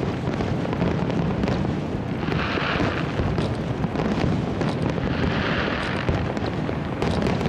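Aerial fireworks shells bursting in quick succession, a continuous booming rumble with sharp pops. Swells of crackling hiss come about two and a half and five and a half seconds in.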